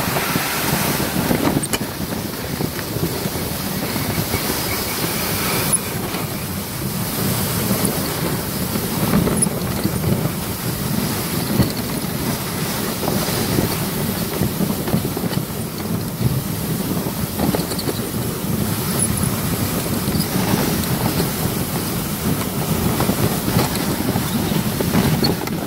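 Plastic snow sled sliding down a groomed snow slope: a continuous rough scraping hiss of the sled's base running over the snow, with wind rushing over the microphone.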